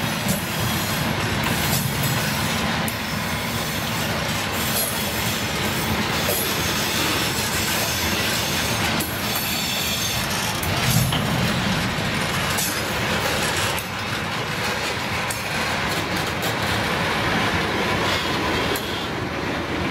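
Loaded ballast hopper wagons of a freight train rolling slowly past: a steady rumble of wheels on rail with repeated clacks over the rail joints.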